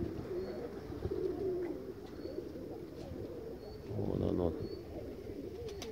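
Domestic pigeons cooing in wavering low calls, with a louder coo about four seconds in.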